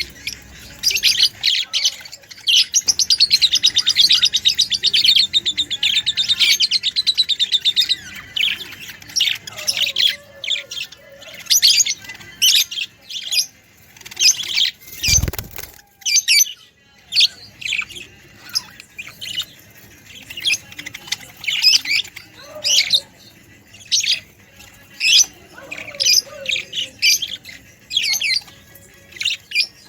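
Budgerigars chirping busily, with a stretch of continuous chattering warble early on and one brief dull bump about halfway through.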